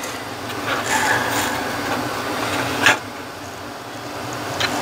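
Instrument cluster circuit board being handled and turned over on a wooden workbench, with a sharp knock about three seconds in and a lighter click near the end, over a steady low hum.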